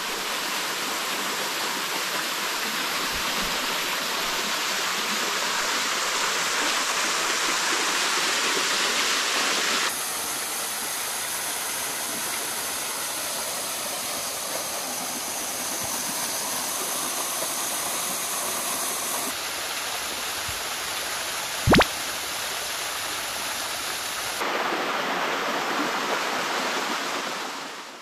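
Rushing water of a waterfall, a steady dense roar that shifts abruptly in tone a few times. A single sharp click comes near the end.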